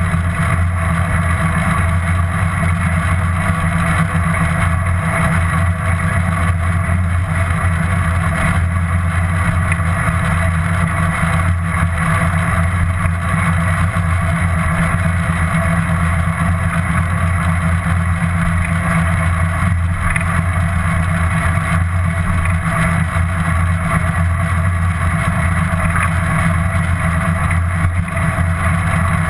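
Steady rumble of wind buffeting and road noise on a GoPro action camera riding along on a moving bicycle.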